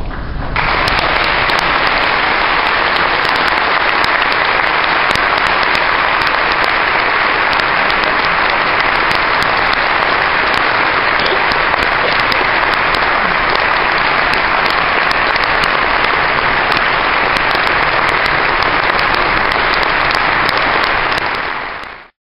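Congregation applauding steadily: dense clapping breaks out about half a second in, holds at an even level, then fades out near the end.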